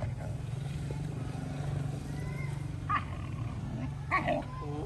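Dogs begging for food, with two short, sharp yips about three and four seconds in, over a steady low hum.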